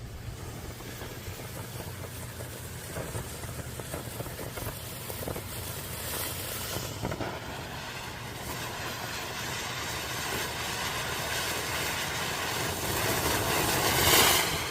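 Wenda "Silent Mode" firework fountain burning with a spraying hiss that builds gradually and is loudest near the end, then drops off. A few faint crackles come early on.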